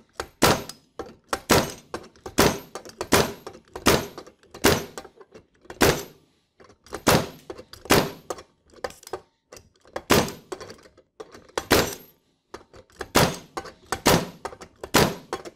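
Pneumatic single rivet driver firing again and again, each trigger pull driving one steel C rivet with washer through a steel guide block into an SR rivet hinged conveyor belt fastener. A run of sharp strikes, often in close pairs, about one to two a second with a few short pauses.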